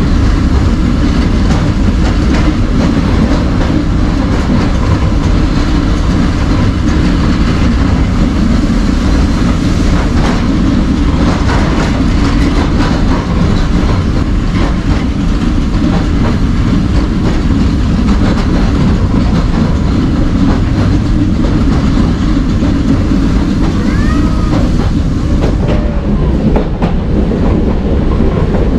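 Heritage electric tram running along its track: a steady loud rumble with repeated clicks of the wheels passing over rail joints.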